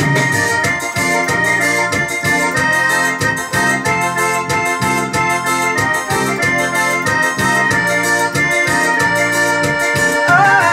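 Yamaha portable keyboard playing a sustained, organ-like melody over a steady beat. A woman's singing voice comes in near the end.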